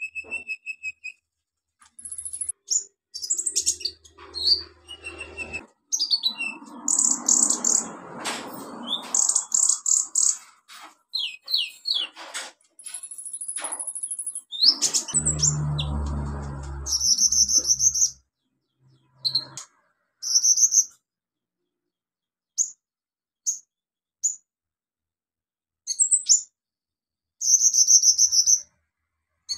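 Van Hasselt's sunbird (kolibri ninja) singing a loud, rapid song of high chirps, short trills and strings of clipped notes, the mimicked-phrase 'isian' style. The song comes in quick runs with pauses, sparser in the second half. Twice a low rumbling noise sits under it for a few seconds.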